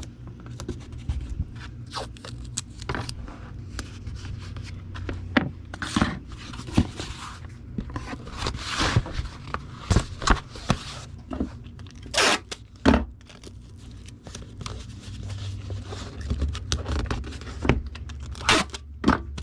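Packing tape being pulled off the roll in several long rasps and pressed down, amid scrapes, taps and knocks from handling a cardboard comic-book mailer.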